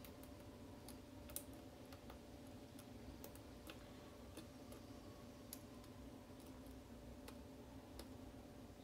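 Faint, irregular small clicks of a lock pick working the pins of a Schlage pin-tumbler lock under tension, over a low steady hum.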